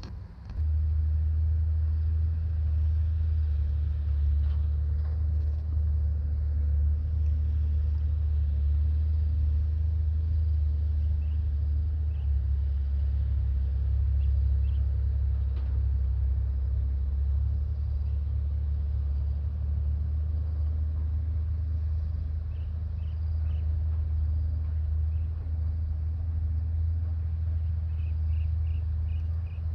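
Wind buffeting the microphone: a steady low rumble, with a few faint high chirps now and then.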